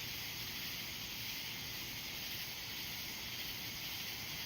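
A steady, high-pitched hissing drone coming from the trees, a sound the listener cannot identify and finds eerie.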